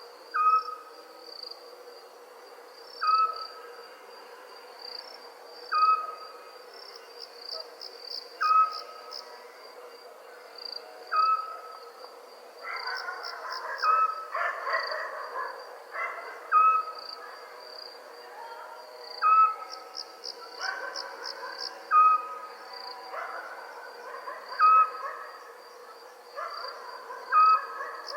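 Crickets chirring steadily at night, in pulsed trills, with a steady low hum beneath. A single short call, the loudest sound, repeats regularly about every two and a half to three seconds. Other animal calls rise for a few seconds around the middle.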